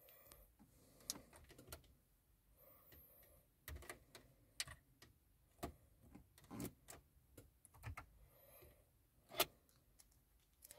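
Faint, irregular clicks and taps of a map-data SD card being pushed in to release it from a car head unit's spring-loaded slot and handled in the fingers, with a sharper click near the end.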